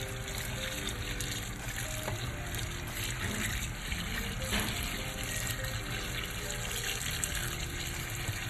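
Tap water running into a sink as leafy greens are rinsed and handled in a stainless-steel colander.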